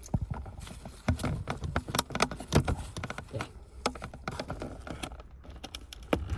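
Irregular light clicks, knocks and rattles of hard plastic as the steering column switch module, carrying the indicator stalk, cruise control and electronic gear selector, is handled and worked off the column.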